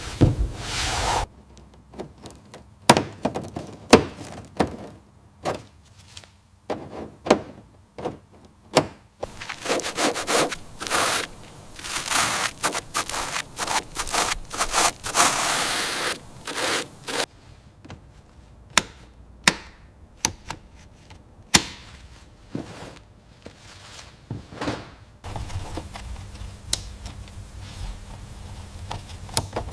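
Hand work on car parts: scattered knocks, taps and clicks, with two stretches of hissing rubbing or scraping about ten and fifteen seconds in.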